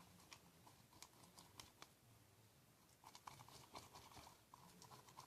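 Faint scattered clicks and sticky crackles of homemade borax slime being handled and picked off the sides of its container, a little busier in the second half.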